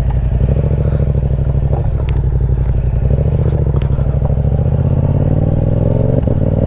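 2022 Yamaha YZF-R7's 689 cc parallel-twin engine running at low revs through a Yoshimura R77 aftermarket exhaust, its pitch climbing slowly over the second half.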